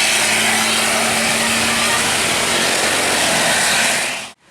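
A bus driving close by with its engine running loud in a steady rushing noise, cutting off suddenly near the end.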